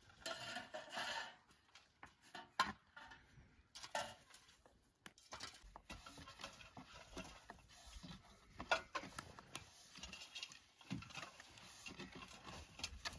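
Thin wooden rolling pin rolling flatbread dough on a round wooden board: faint scattered knocks and rubbing of wood on wood and dough.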